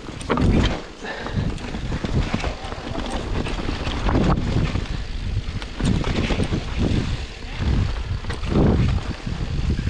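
Riding a bicycle over rough trail: wind buffeting the microphone in uneven swells, with scattered knocks and rattles from the bike over bumps.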